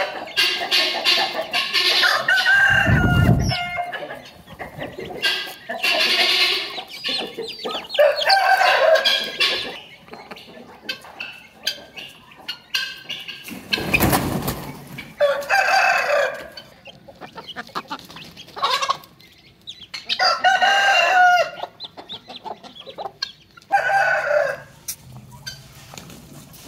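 Chickens clucking and a rooster crowing, with pitched calls repeating every few seconds. Two dull knocks stand out, one a few seconds in and one about halfway through.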